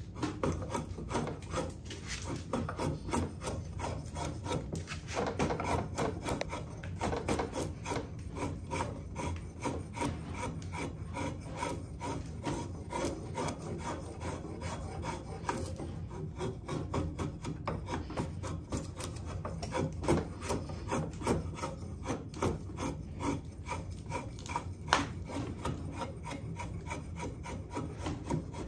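Sharp L&IJ White #6 cooper's drawknife shaving wood in a continuous run of quick, rasping strokes.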